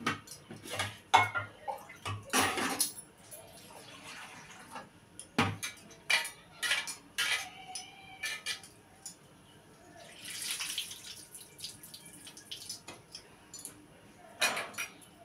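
Metal pots, bowls and utensils clattering on and around a gas stove while cooking, with scattered sharp clinks and knocks and a brief hiss about ten seconds in.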